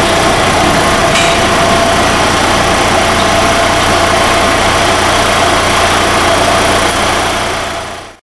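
CNC router spindle running at speed while milling acrylic: a steady whine over a dense hiss, fading out near the end.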